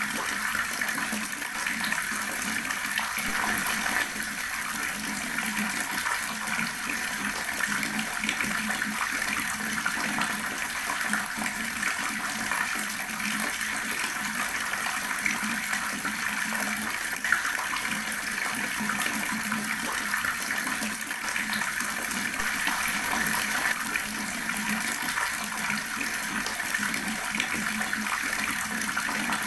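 Water running steadily from an outdoor tap, splashing as it falls.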